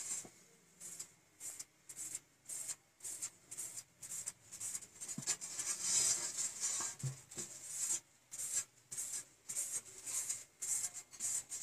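Repeated short rubbing strokes across a freshly painted board as the wet paint is worked into streaks, about two or three strokes a second after a quieter first second.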